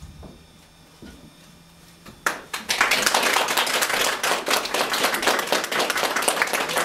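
Many people clapping in applause, which breaks out about two seconds in after a quiet moment and keeps up densely.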